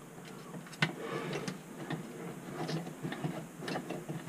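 Hands working around a Premier garbage disposal under a sink: scattered light clicks and knocks, with one sharper click about a second in.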